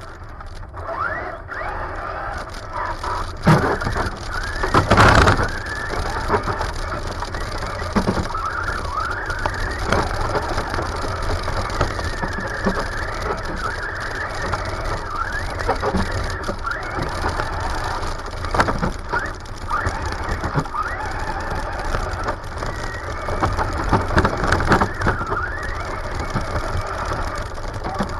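Traxxas Slash RC truck's electric motor and gears whining up and down in pitch as it speeds up and slows, heard close up from on board, with rumbling noise from driving over pavement and grass. A loud knock comes about three and a half seconds in and a heavier jolt around five seconds in.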